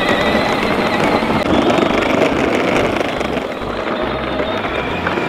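Children's battery-powered ride-on toy tractors driving over grass: a steady whine from their electric motors and gears over a dense, steady rushing noise.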